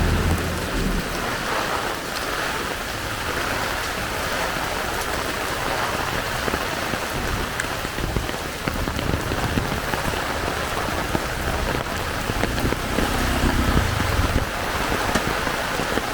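Heavy tropical rain pouring steadily onto wet surfaces, with a low rumble swelling briefly near the end.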